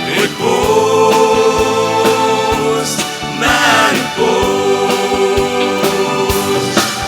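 Choir singing two long held chords, backed by a band with a steady drum beat.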